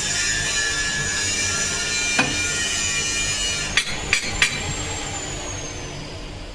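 Steel fabrication shop machinery running with a steady whine, with a sharp metal knock about two seconds in and three quick knocks around four seconds in; a high whine then falls slowly in pitch as the noise fades, like a machine winding down.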